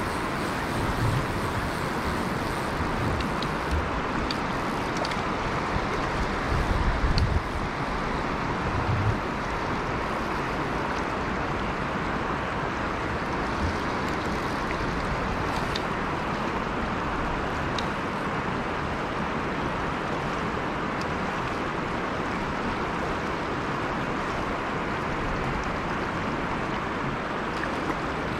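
Steady rush of flowing river water, with a few low thumps in the first ten seconds.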